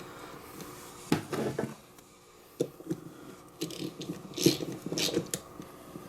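Hands working on the winch wiring: a series of short clicks, knocks and rattles of small metal parts and tools, with a quiet gap between them.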